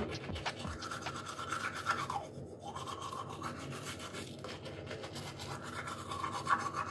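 Manual toothbrush scrubbing teeth, a scratchy back-and-forth brushing.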